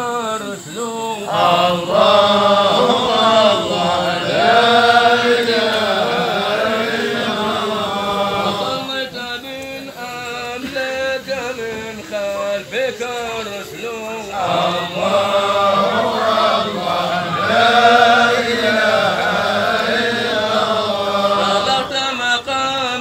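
Male voices chanting a Sufi hadra (dhikr), a continuous sung chant in long phrases that rise and fall in pitch.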